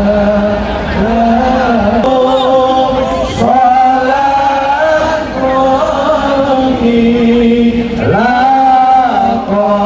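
Sholawat, Islamic devotional chanting, sung in long, held melodic phrases that rise and fall, with a new phrase starting about three and a half seconds in and again about eight seconds in.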